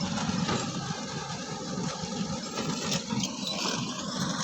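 Excavator's diesel engine running steadily as it works a sand pit, a low mechanical drone under a rushing noise.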